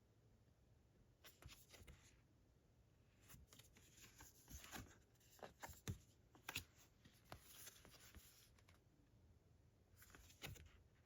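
Faint rustling and light taps of glossy art cards being handled and turned over, in short clusters with quiet pauses between.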